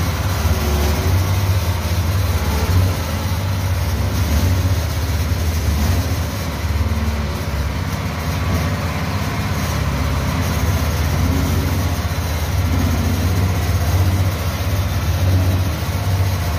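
Small engine of a cart-mounted sugarcane juice machine running steadily, driving the crushing rollers as sugarcane is fed through them.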